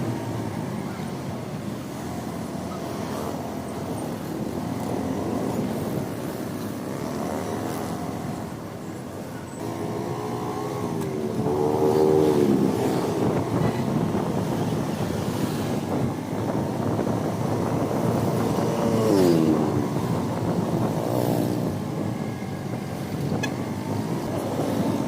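A vehicle engine running on the road, with steady road and wind noise. Its pitch rises and falls several times as it accelerates, most clearly about halfway through and again about three-quarters of the way in.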